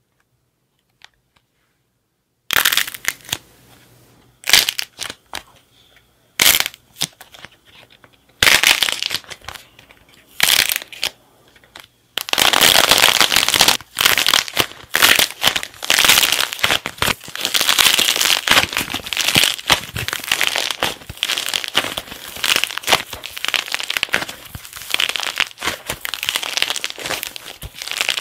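Hardened clay shell cracking under squeezing fingers: a few separate sharp cracks a second or two apart at first, then from about halfway through a dense, continuous crackling and crunching as the shell breaks up over soft clay inside.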